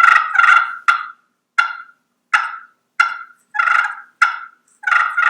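Slate turkey call scraped with a striker, played as a hen's feeding call. About ten short clucking notes, loosely and unevenly spaced.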